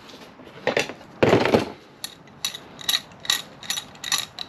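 Steel C-clamps knocking against steel plate as they are set in place, then a run of short, even clicks, about three a second, as a clamp is screwed tight.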